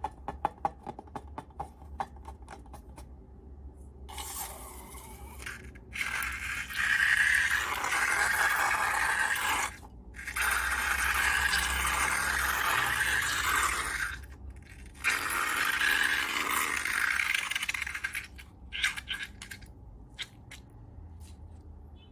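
Slime-making handling sounds: a quick run of small clicks, then three long stretches of steady scraping, each a few seconds long, ending in a few scattered clicks.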